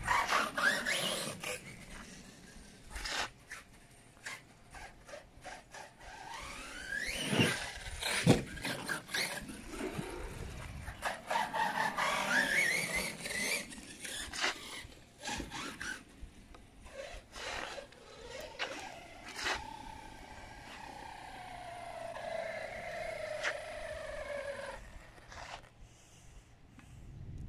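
Arrma Outcast 6S RC truck's brushless motor whining, its pitch rising and falling as the truck speeds up and slows, with scattered clicks and tyre scrapes as it drives over paving and grass.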